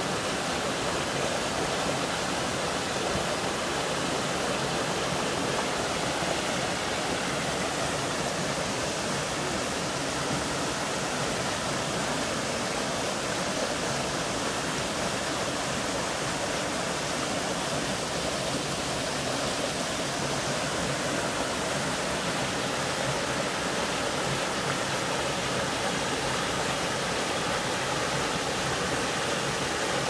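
Small waterfall and mountain stream rushing over boulders: a steady, unbroken rush of water.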